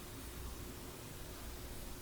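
Steady background hiss with a faint low hum and a thin steady tone underneath; no distinct events.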